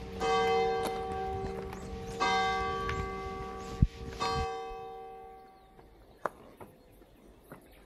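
Church bell tolling three times, about two seconds apart, each strike ringing on and dying away after the third.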